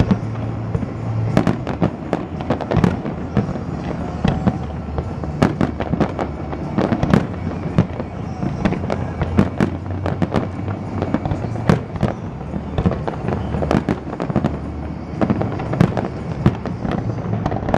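Fireworks display with shells bursting in quick succession, many bangs a second throughout, over a steady musical soundtrack underneath.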